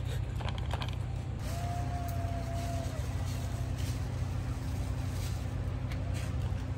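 A steady low hum with a thin stream of hot water poured from a kettle into a cup of instant noodles.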